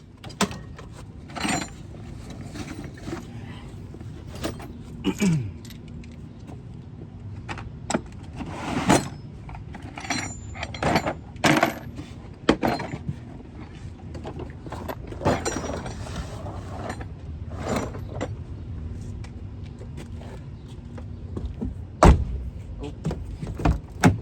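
Hand tools being handled and put away: scattered metallic clinks, clanks and rattles, with one sharp knock near the end as the loudest.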